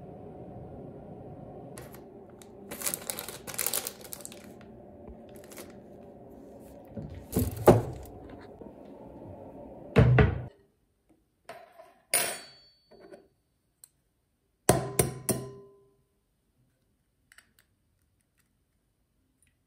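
A series of knocks and clatters, like objects being picked up and set down, over a steady low hum. The hum cuts off suddenly about ten seconds in, and a few more knocks follow.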